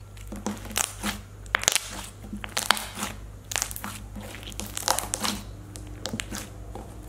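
Thick clear-and-clay slime being stretched, folded and squeezed by hand, giving a dense, irregular crackling and popping as trapped air bursts: the slime's sizzly texture.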